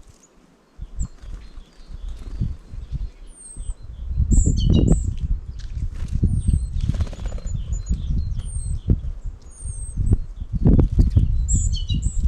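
Small birds at a feeder: short, thin, high calls that slide down in pitch, repeated several times, with louder bursts of calling about four seconds in and near the end. Under them runs irregular low fluttering and thumping.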